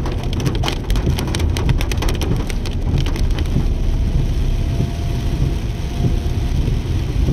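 Rain hitting a moving car: many sharp drop ticks over a steady low rumble of road and engine noise. The ticks thin out about three and a half seconds in, leaving the rumble.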